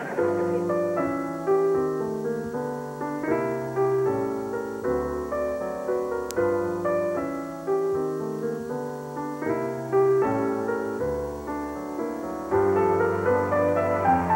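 Piano music: a slow melody over held chords and a bass line, with new phrases starting every few seconds.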